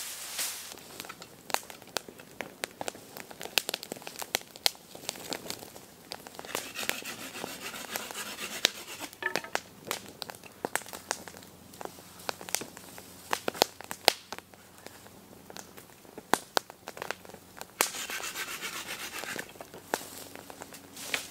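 Wood campfire crackling, with many sharp pops and snaps. Twice there are stretches of rustling and tearing as leafy side shoots are pulled and cut from a green hornbeam pole.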